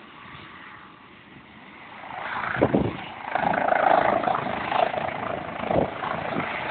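Helicopter running up on the pad: its engine and rotor noise swells from about two seconds in and then holds steady, with a few brief low thumps.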